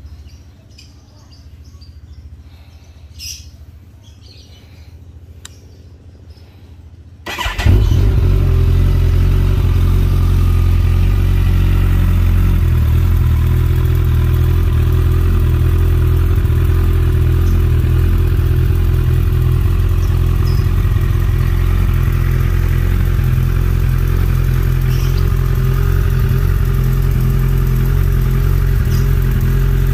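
Kawasaki ZX-14R's 1441 cc inline-four, fitted with an Akrapovič muffler, starting about seven seconds in: a short surge as it catches, then a loud, steady idle.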